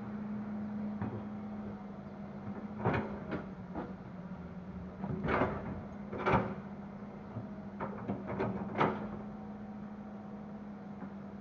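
Hitachi hydraulic excavator's diesel engine running with a steady hum, and a run of sharp clanks and thuds in the middle stretch as the bucket and soil load a dump truck.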